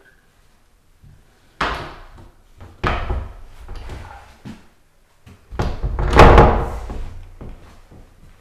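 A door being handled: a few separate thuds and knocks, the loudest and longest about six seconds in.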